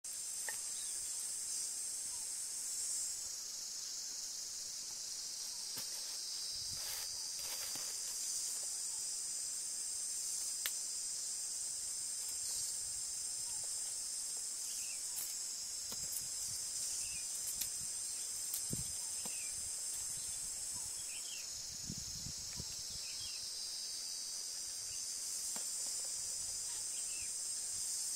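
A steady, high-pitched chorus of insects droning, with occasional faint clicks and a few soft thumps.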